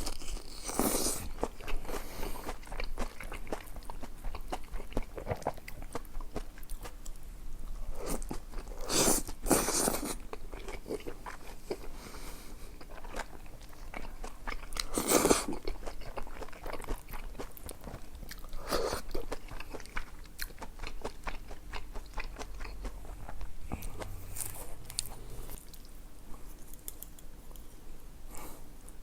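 A person chewing and biting food with crunching and wet mouth sounds, louder bites standing out four times.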